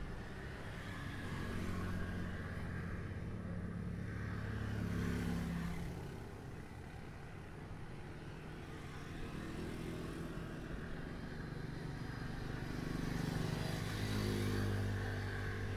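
Motor vehicle engines going by, a low hum that swells and fades twice, once about a few seconds in and again near the end.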